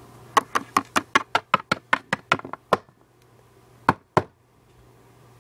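A quick run of about fifteen sharp knocks in about two and a half seconds, then two more knocks close together a second later.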